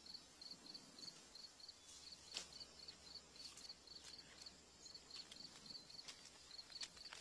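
Crickets chirping in a fast, steady high rhythm, with a few soft paper crinkles as an envelope is opened: one about two seconds in and a couple more near the end.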